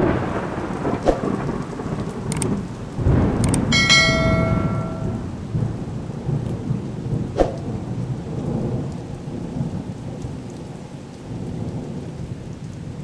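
Rain with rolling thunder, swelling about three seconds in, with a short bell-like chime ringing out about four seconds in and a sharp click a few seconds later.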